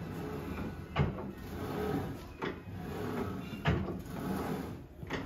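Weight stack of a leg press machine clunking down with each repetition: four sharp knocks at uneven intervals of about a second to a second and a half, over low room noise.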